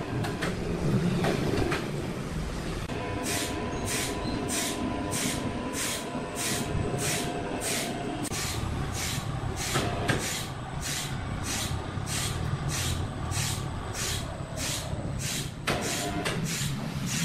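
Electric overhead crane hoist running under a load of sawn timber: a low rumble with a steady motor whine, and from about three seconds in a regular hissing tick about twice a second.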